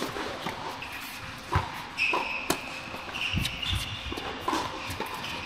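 Tennis balls knocking sharply on an indoor hard court, bouncing and being struck, a few irregular knocks, with short high sneaker squeaks on the court surface in the middle.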